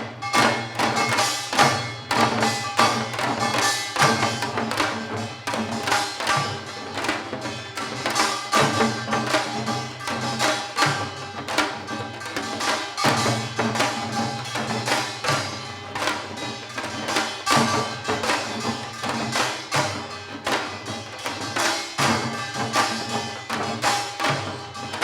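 Korean janggu (hourglass drum) played in a fast, dense seoljanggo rhythm, sharp strokes on the stick side mixed with deeper hand strokes, with some ringing tones sustained beneath them.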